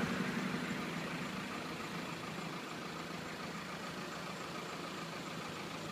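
Steady street traffic noise: vehicles running and idling, a low hum that eases over the first couple of seconds and then holds level.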